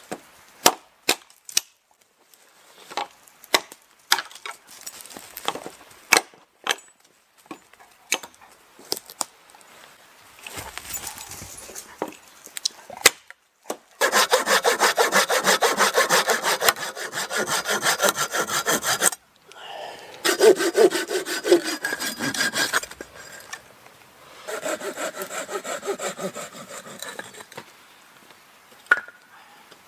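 An axe chopping a fallen branch, a series of sharp separate strikes, then a hand saw cutting through a wooden pole in rapid back-and-forth strokes, in three bouts with short pauses between.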